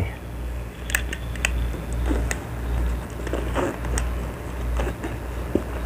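Scattered small clicks and rustles of items being handled and packed into a suitcase, over a steady low hum.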